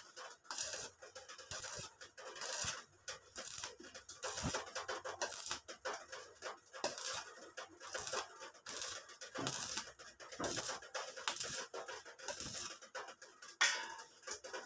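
Stick (shielded metal arc) welding on steel tubing: the electrode's arc crackles and sputters irregularly, swelling and dropping in uneven stretches, with a sharp louder crack a little before the end.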